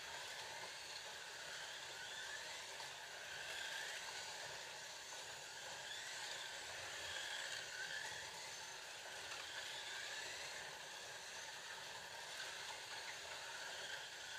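Scalextric slot cars lapping the track, their small electric motors whining in a pitch that rises and falls as they speed up and slow for the corners, over a steady hiss.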